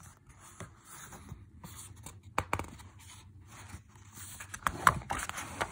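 Pages of a paperback book being handled and turned: paper rustling and scraping, with a few sharp clicks.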